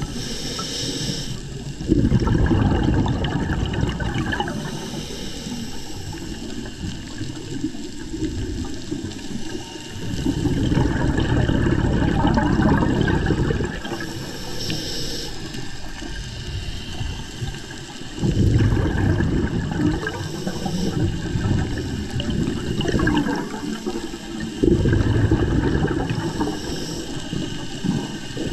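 Scuba regulator breathing underwater: short hissing inhales alternating with long bubbling exhales, about four breaths.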